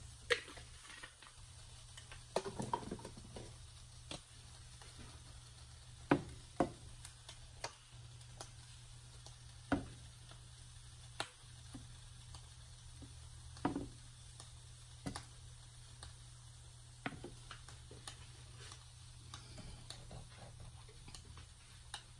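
Wooden spatula stirring a wet mix of fish and vegetables in a skillet: scattered light knocks and scrapes against the pan every second or two, over a faint steady low hum.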